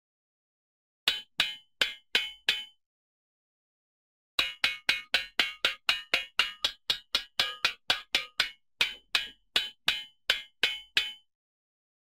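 Cartoon sound effect made of sharp, dry knocks: five in quick succession, then after a pause a longer run at about three to four a second that stops shortly before the end.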